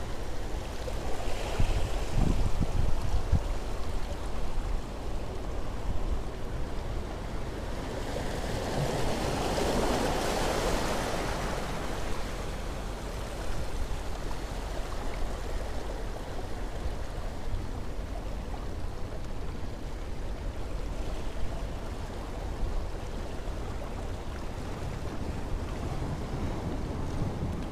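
Small waves washing against shoreline rocks, with wind rumbling on the microphone. A louder wash of surf swells and fades about eight to twelve seconds in.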